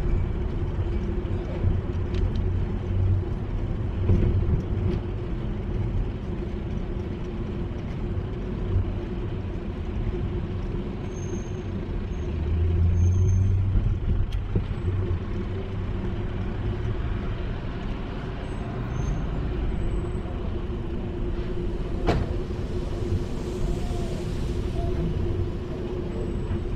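Wind rumbling on an action camera's microphone and tyre noise from a bicycle riding on a paved street, with a steady low hum underneath. A stronger gust swells about halfway through, and there is a single sharp click later on.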